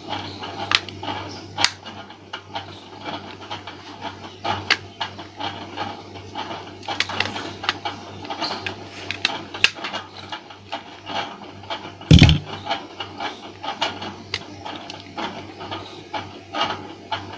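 Irregular small plastic clicks and taps as a feature phone's plastic housing is opened by hand with a tool, over a steady low hum, with one louder knock about twelve seconds in.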